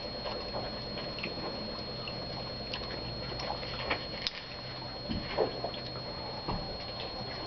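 Scattered soft crackles and clicks from crumpled plastic food wrappers being handled, over a steady low hum and a thin high whine.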